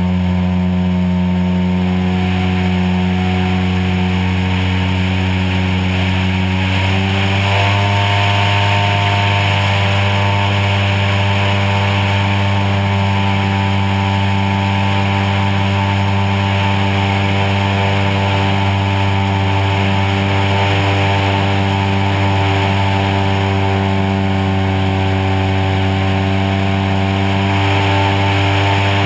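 DA-100 twin-cylinder two-stroke gasoline engine of a large RC Super Cub float plane running steadily in flight, heard up close from a camera mounted on the plane, with wind rush. The engine note steps up slightly about seven seconds in and holds there.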